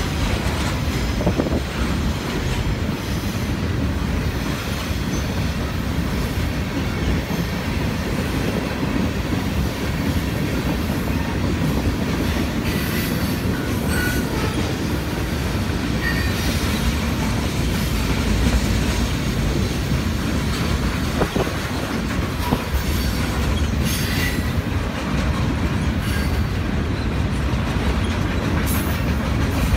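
Freight train's boxcars and tank car rolling past: a steady low rumble of steel wheels on the rails, with occasional clacks over rail joints and a few short high-pitched wheel squeaks.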